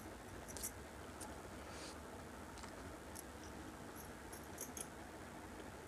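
Close-miked chewing of a mouthful of noodles with the mouth closed: scattered soft, wet mouth clicks, with a small cluster a bit past halfway, over a steady hiss.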